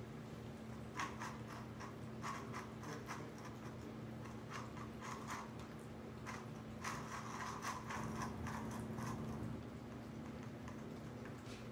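Several cats eating wet food and boiled chicken from bowls and cans on a tile floor: irregular small clicks and smacks of chewing and licking. A steady low hum runs underneath.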